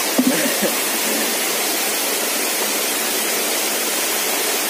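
Small waterfall and a shallow rocky stream rushing, a steady even water noise.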